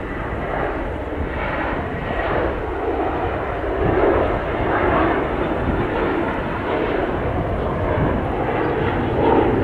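Airbus A321 jet engines at takeoff thrust as the airliner lifts off and climbs out: a steady, dense rush of jet noise that wavers and grows a little louder toward the end.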